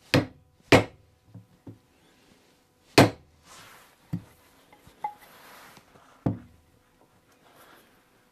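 A hammer tapping an awl into the end grain of a walnut block, punching the centre mark for the lathe's spur drive and live centre: a handful of sharp taps at uneven spacing, the loudest about three seconds in.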